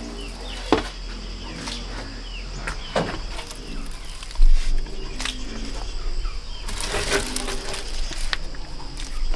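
Rural outdoor ambience: birds chirping over a steady high insect drone, broken by scattered knocks and rustles, with a cluster of them about seven seconds in.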